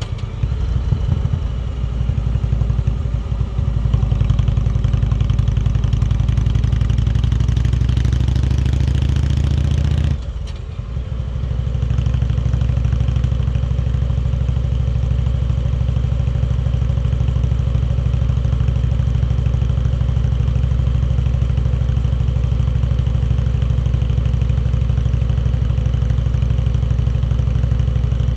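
Indian Chieftain Dark Horse's V-twin engine pulling under throttle, with rising wind rush, for about ten seconds. The sound then drops off sharply as the throttle closes, and after a couple of seconds the engine settles into steady, even running.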